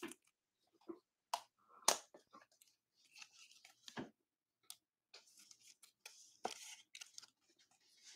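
Faint handling of trading cards: scattered soft clicks and taps, and a light rustle of a card sliding into a clear plastic sleeve.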